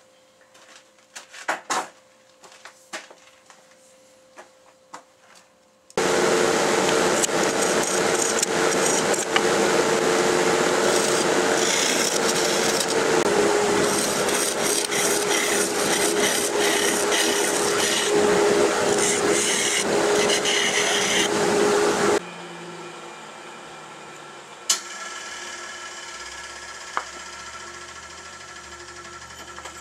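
Wood lathe turning a hard oak pot-call blank while a turning tool hollows out its inside: a loud, steady cutting hiss starts suddenly about six seconds in and stops abruptly a few seconds before the end. Before it there are a few light clicks over a faint hum, and after it the lathe keeps running with a quieter hum.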